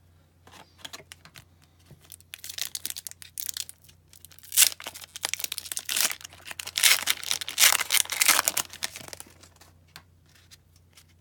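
A foil trading-card pack wrapper being torn open and crinkled by hand: scattered crackles at first, then dense crinkling and tearing, loudest from about two to nine seconds in, then quiet handling.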